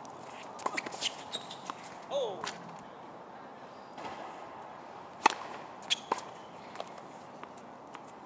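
Tennis balls struck by racquets and bouncing on a hard court: a string of sharp pops at uneven intervals, the loudest a little past five seconds in. A short gliding squeak comes about two seconds in.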